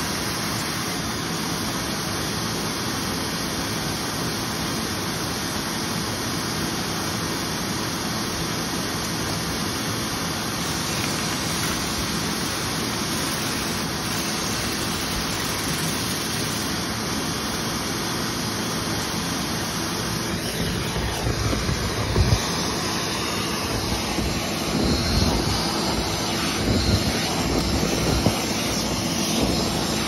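Dryer-vent cleaning vacuum running steadily, a loud rushing roar with a faint steady hum, pulling lint from the vent. In the last ten seconds or so, uneven low bumps and louder surges break in as the hose is moved and sucks up lint.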